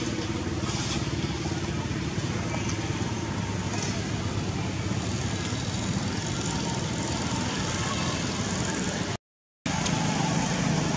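Steady outdoor background rumble and hiss, like distant traffic, with no sound from the sleeping monkeys. The audio cuts out completely for about half a second near nine seconds in.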